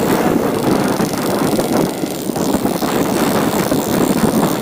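Yamaha RX King 135's two-stroke single-cylinder engine running steadily as the motorcycle is ridden.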